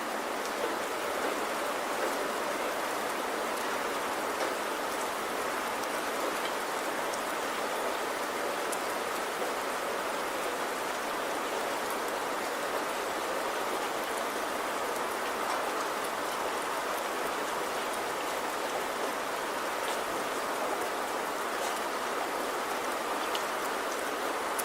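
Steady rainfall, a continuous hiss with faint scattered drop ticks.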